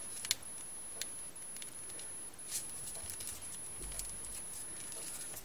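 Folded paper units of a 3D origami model being handled and pushed into place: faint scattered clicks and paper rustles.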